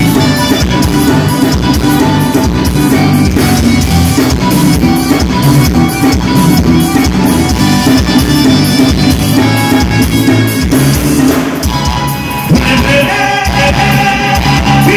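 Live amplified forró band playing: accordion and electric bass with a steady beat, and a man singing into a microphone. The music dips briefly about twelve seconds in, then picks up with a new phrase.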